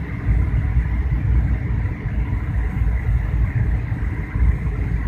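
Steady low rumble of a passenger plane's cabin noise, engines and airflow heard from inside the cabin.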